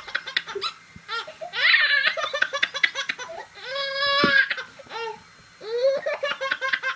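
A baby laughing hard, in several bursts of high-pitched giggles and belly laughs.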